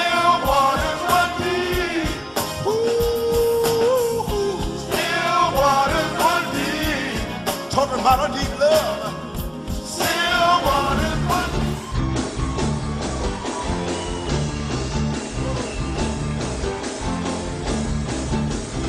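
Live soul band music: sung vocals over the band for about the first ten seconds, then the band plays on without singing, with bass and guitar.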